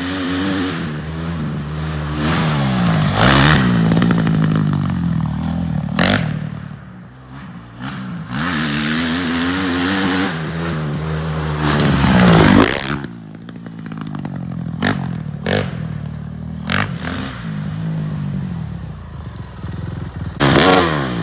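A 2005 Honda CRF450R's single-cylinder four-stroke engine, fitted to a three-wheeler trike, revving up and down repeatedly as it is ridden, with the highest revs about three and twelve seconds in. A few short sharp knocks sound over it.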